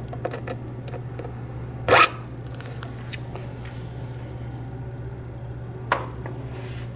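Triangular file rasping against a penny to cut notches through the copper plating: a few light scrapes, one loud stroke about two seconds in and another near the end, over a steady low hum.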